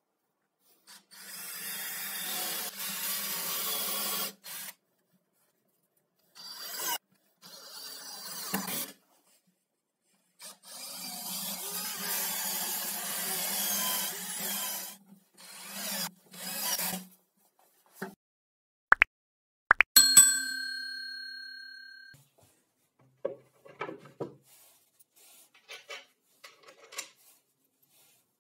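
Cordless drill running in several bursts of a few seconds each with a steady motor hum, boring into plywood. Around twenty seconds in, a couple of sharp metallic clicks and a clear ringing tone that fades over about two seconds, then light knocks of parts being handled.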